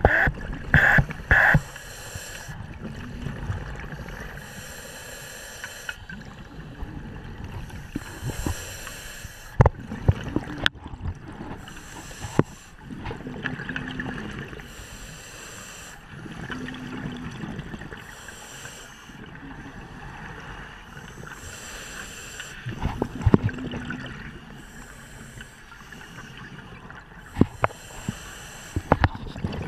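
Scuba diver breathing underwater through a regulator: a hissing inhale alternating with a rumbling rush of exhaled bubbles, the cycle repeating about every four to five seconds, with a few sharp knocks among them.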